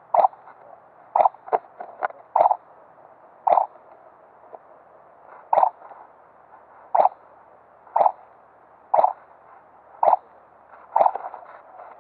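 Airsoft guns firing single shots, about a dozen short sharp pops at uneven intervals, roughly one a second.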